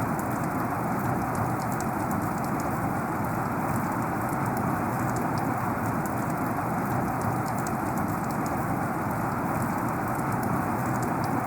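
Heavy rain falling steadily, a dense even hiss with fine ticks of individual drops.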